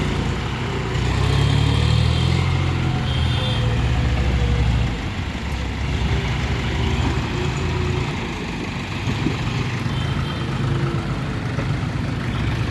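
Heavy diesel engine of a working machine running. It grows louder and works harder from about a second in, then eases back suddenly about five seconds in to a lower steady running.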